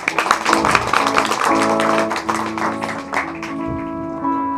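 Hollow-body archtop guitar strummed: rapid strokes for about the first second and a half, then chords left ringing.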